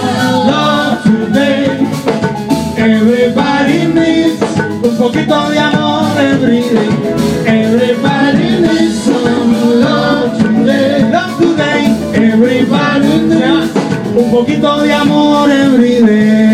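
Live salsa band playing an instrumental break: a trombone solo over drum kit and Latin percussion.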